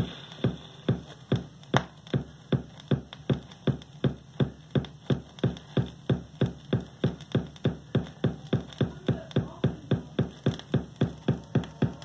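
Music played from a vinyl record on an Audio-Technica turntable, heard through desktop speakers: a steady, strong beat at a little over two beats a second.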